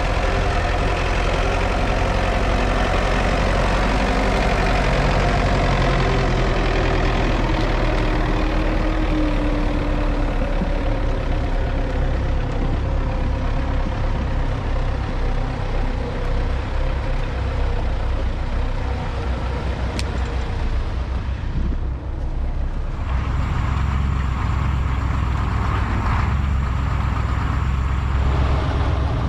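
MTZ-82 tractor's four-cylinder diesel engine running steadily, dipping briefly about two-thirds of the way through.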